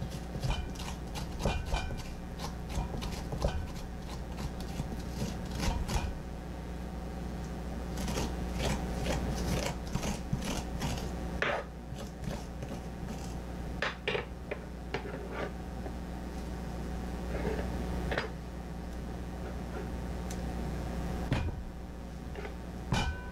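Metal spoon scraping the seeds and stringy pulp out of pie pumpkin halves, a run of irregular rasping strokes, with a few louder knocks against the wooden cutting board. A steady low hum runs underneath.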